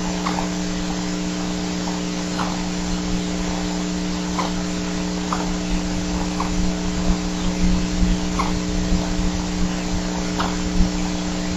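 Steady electrical hum and hiss from a nest camera's microphone feed, with short faint chirps every second or two and some low rumbling bumps in the second half.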